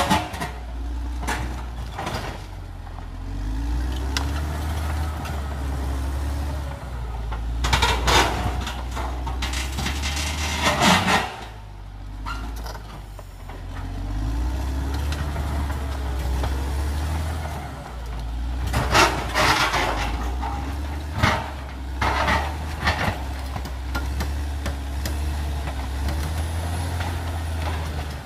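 CAT D6R XL bulldozer's diesel engine working under load, its low note rising and falling, with several loud, harsh bursts of noise from the machine's work: about 8, 11, 19 and 21 seconds in.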